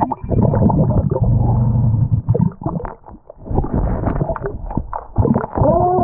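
Underwater gurgling and rumbling of churning water and air bubbles, heard through a submerged camera's microphone, in two long stretches with a short lull about halfway through.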